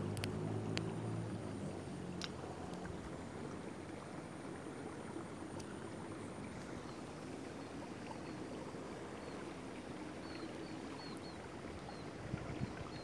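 Steady outdoor background noise with a faint low hum that fades out over the first few seconds. A few faint ticks come early, and faint short high chirps come now and then in the second half.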